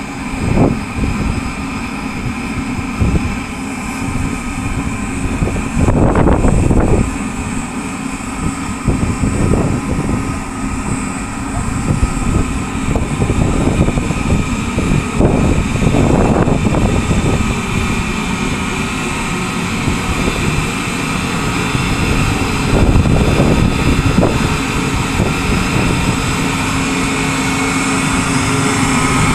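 Steady mechanical drone of a running tire pyrolysis plant, its motors, fans and pumps, with a few constant tones through it and a few louder swells.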